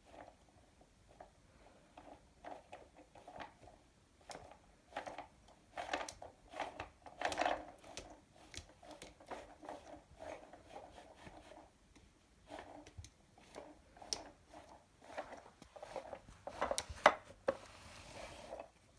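Irregular light clicks, taps and rattles of a toy car being moved around, with a few louder clacks about seven seconds in and again near the end.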